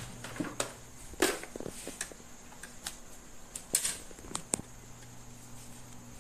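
Irregular clicks and taps of a hand handling a portable mini electric sewing machine at its needle and presser foot, with two sharper clicks standing out, over a steady low hum.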